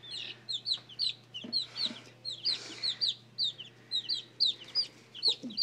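A flock of baby chicks peeping without a break: many short, high-pitched peeps, each sliding downward, several a second from several birds at once.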